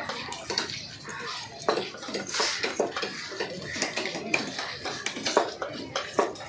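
Knife blows and scraping on a chopping block as a large fish is cut up: a string of irregular sharp knocks and clatter.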